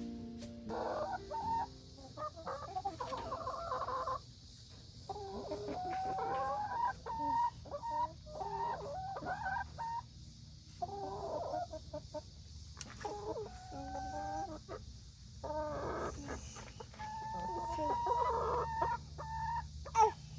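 Chickens clucking in a run of short calls with brief pauses between them.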